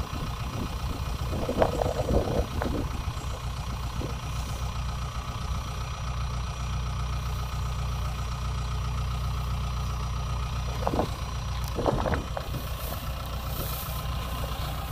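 Kubota DC60 combine harvester's diesel engine idling steadily with the machine stopped. A few short knocks come about two seconds in and again around eleven to twelve seconds.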